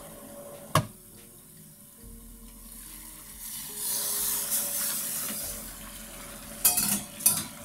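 A metal pan lid clinks as it is lifted off, then the broth of fish and clams underneath bubbles and hisses at a simmer, swelling a few seconds in. Two sharp clinks of metal come near the end.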